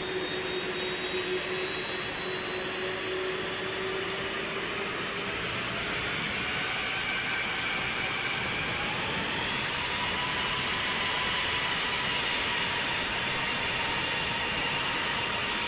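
Lockheed C-5 Galaxy's four turbofan engines running on the ground as the aircraft taxis: a steady dense jet noise with several high whines that slowly rise in pitch, growing a little louder.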